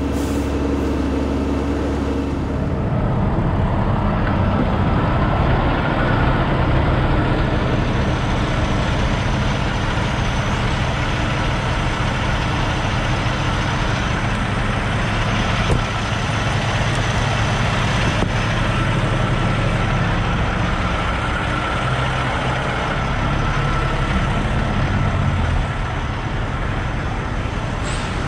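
Semi truck's diesel engine idling, a steady low running sound that shifts in character about three seconds in and then holds.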